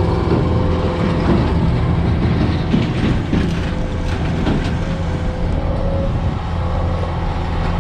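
A vehicle engine running steadily with a low drone, with rattling and clatter over it; it cuts off abruptly at the end.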